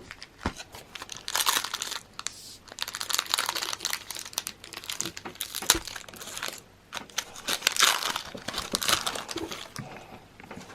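Foil Pokémon booster pack wrapper being torn open and crinkled, in irregular bursts of crackling rustle with a couple of sharp clicks.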